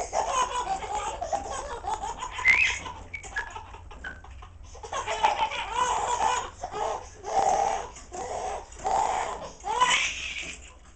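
Young child laughing in repeated high-pitched bursts.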